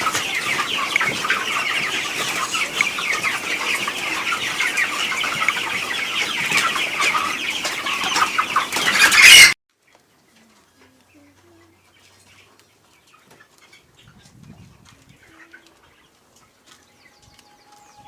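A crowded flock of broiler chicks peeping continuously, a dense mass of high calls. The calls swell louder, then cut off suddenly about halfway through, leaving near silence.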